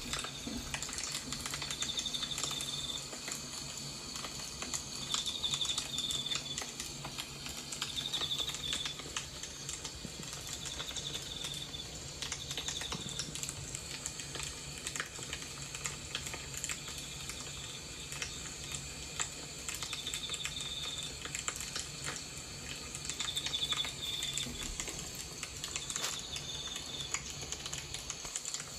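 Small fire in a miniature fireplace crackling, with many quick little pops and ticks over a low steady hum. A short high trill sounds every few seconds.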